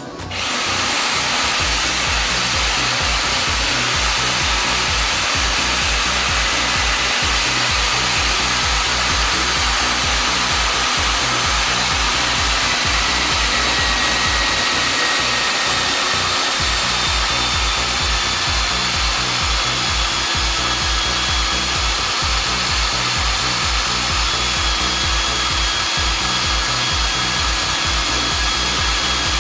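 Cayken SCY-38WSPM magnetic drill's 1650 W motor switching on about half a second in, then running steadily with a faint high whine as its annular cutter bores a hole into a steel pipe.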